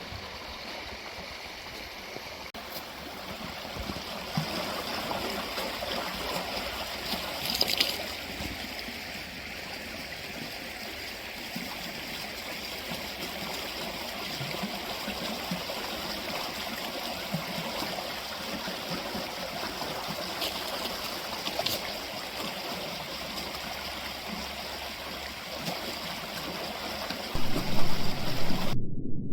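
Creek water running steadily over stones, with a faint click or two. Near the end a louder low rumble comes in.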